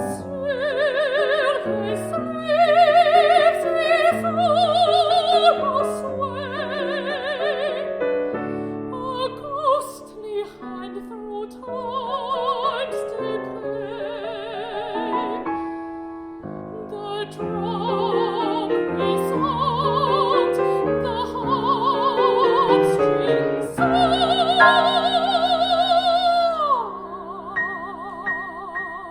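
A classical art song sung in Peking Opera style over piano, the voice holding long notes with a wide, even vibrato. About three-quarters of the way through, the voice slides steeply down in pitch.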